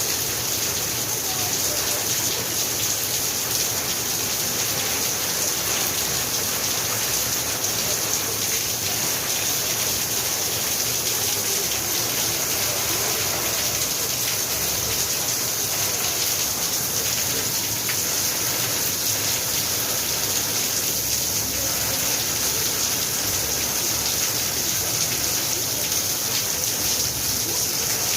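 Steady rain falling, an even, unbroken hiss of many drops that neither builds nor eases.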